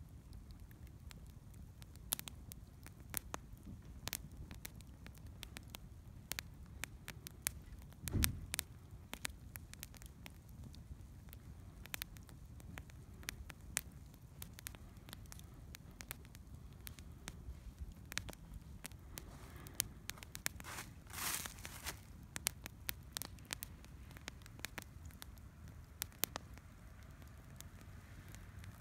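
Wood campfire crackling, with frequent sharp pops and snaps over the low noise of the flames. A dull thump comes about eight seconds in, and a brief rushing noise comes around twenty-one seconds.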